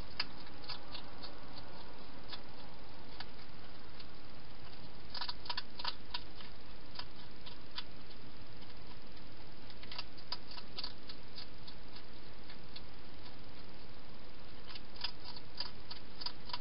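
A wild hedgehog eating from a bowl: bursts of small sharp clicks, about every five seconds, over a steady hiss.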